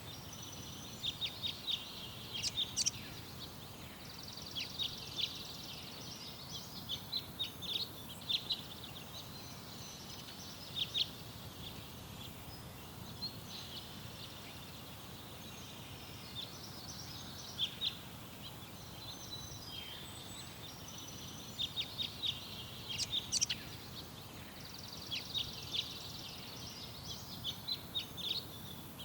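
Garden birds singing: several phrases of quick chirps and trills with short pauses between them, over a steady low background noise.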